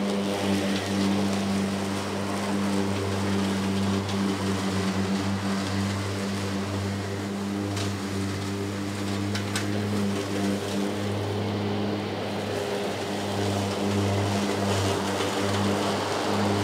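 Greenworks Pro 60V electric zero-turn riding mower cutting grass with its blades on full speed: a steady electric hum with a few brief clicks about eight to ten seconds in.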